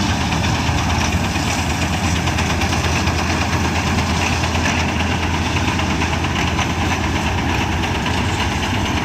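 Combine harvester running steadily: a constant low engine hum under a dense, even mechanical noise.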